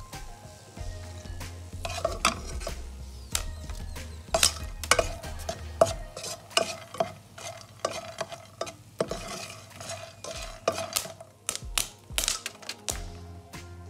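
Black plastic spatula stirring and scraping popcorn around a nonstick frying pan, with many sharp, irregular clicks and taps and a light sizzle of hot oil.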